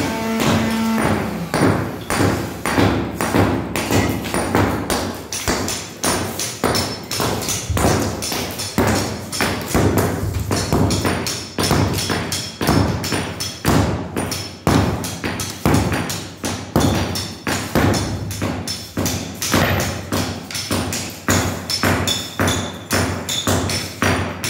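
A hammer knocking on old floor tiles to chip them loose, several blows a second in a steady run.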